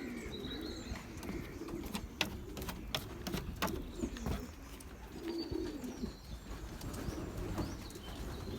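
Racing pigeons cooing in a loft, low warbling calls repeating on and off, with a run of sharp taps between about two and four seconds in.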